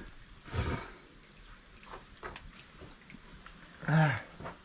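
Scattered water drips in a rock tunnel. A short noisy whoosh comes about half a second in, and a brief grunt near the end.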